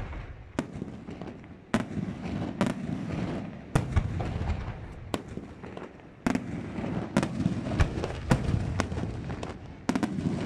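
Aerial fireworks shells bursting one after another, about a dozen sharp bangs roughly a second apart. A rumbling reverberation fills the gaps between them.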